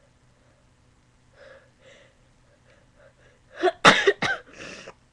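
A person sneezing: a few soft catching breaths, then a rising intake about three and a half seconds in and two sharp explosive sneezes in quick succession, followed by a short trailing breath.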